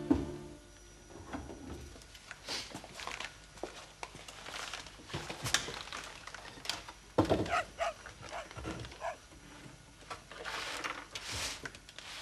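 Scattered small knocks, clatter and rustling of someone moving about and handling things on a wooden table, with a few short squeaks or creaks around the middle.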